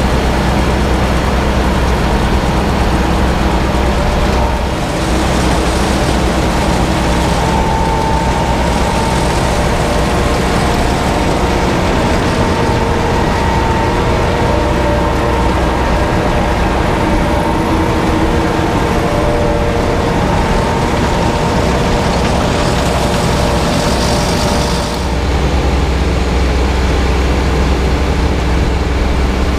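Steady drone of tractor engines and machinery unloading chopped corn silage into a silage bagger, with a strong low rumble and several steady hums. The mix shifts slightly about 5 and 25 seconds in.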